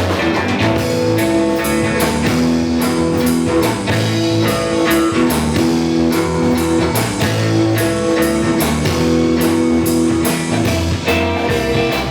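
Instrumental break in a rock song: electric guitar and bass over a steady drum-kit beat, with no singing.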